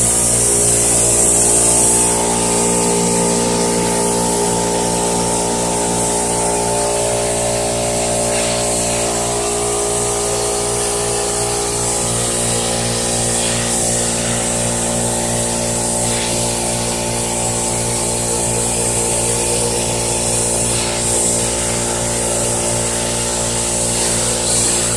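CNC plasma torch cutting steel sheet: a loud, steady hiss of the arc and its air over a steady hum of layered tones.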